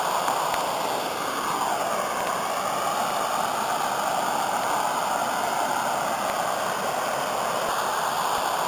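Muddy flash-flood water pouring over a waterfall and churning into foam below: a steady, even rushing.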